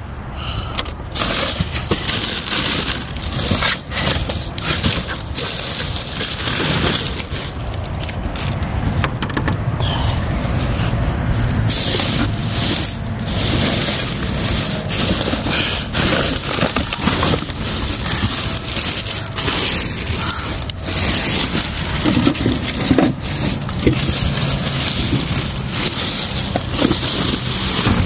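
Plastic trash bags rustling and crinkling as they are handled and shifted inside a dumpster, with many short crackles.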